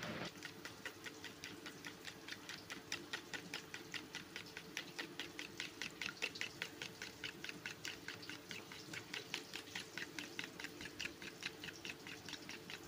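Raw eggs being beaten by hand in a bowl: the utensil clicks against the bowl in a quick, steady rhythm of about four strokes a second.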